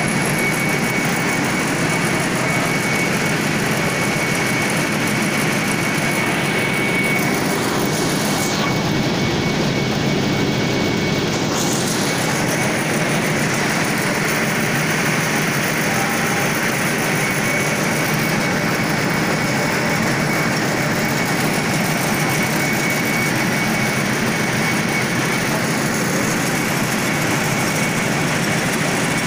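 A high-speed 630 mm 1+6 skip stranding machine running: a loud, steady noise of rotating machinery with a thin, steady high whine that fades about twelve seconds in.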